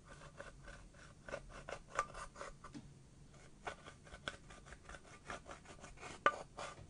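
Small metal tool scraping and crumbling pressed eyeshadow out of the pans of a plastic palette: a run of quick, uneven scratches and clicks, with a sharper click about two seconds in and another near the end.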